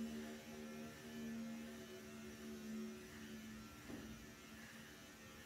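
Electric hair clippers running with a steady motor hum as they are worked through the hair, growing fainter in the second half.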